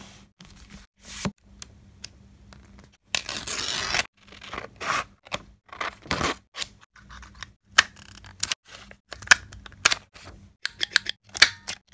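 Paper rustling, then scissors snipping through vellum paper in several strokes, followed by a run of sharp clicks from a plastic craft corner punch cutting the vellum.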